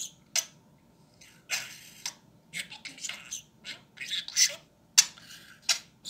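Budgerigar chattering: a string of short, high-pitched chirps and scratchy bursts with a few sharp clicks, after a brief pause of about a second at the start.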